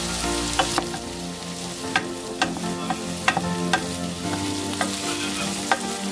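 Carrots frying in butter in a pan, sizzling steadily while they are stirred, with about eight sharp clicks of the utensil against the pan.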